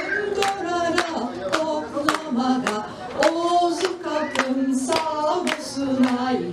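A woman singing a song through a microphone and amplifier, holding long notes, while people clap along to the beat about twice a second.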